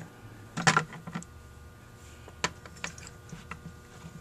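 Small metal carburetor parts being handled and moved about on a rubber work mat: scattered light clicks and taps, with a louder cluster under a second in.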